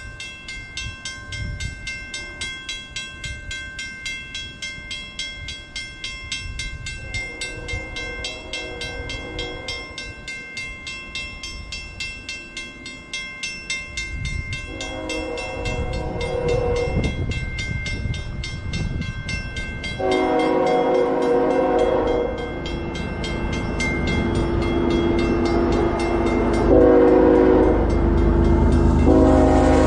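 A level-crossing warning bell rings steadily while an approaching Canadian Pacific diesel freight locomotive sounds its multi-tone air horn in several long blasts. The diesel's rumble grows louder toward the end as it nears the crossing.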